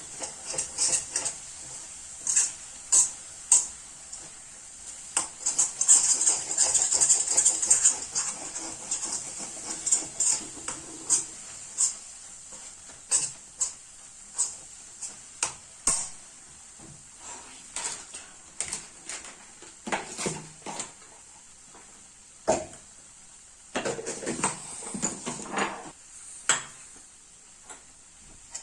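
A spoon scraping and knocking against a kadhai (Indian wok) as thick ginger paste is stirred while it cooks: irregular clicks and scrapes, with a dense run of scraping about five to eight seconds in.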